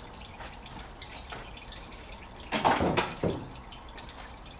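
Used engine oil dripping and trickling from the Honda Civic's sump drain hole into a drain pan as the oil drains out. A brief louder noise comes in two parts a little past halfway.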